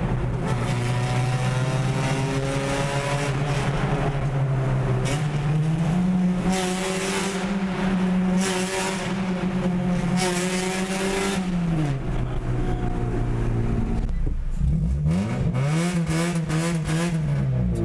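Car engine running loud, its pitch rising about six seconds in, holding, then dropping back about twelve seconds in; near the end it is revved up and down several times in quick succession.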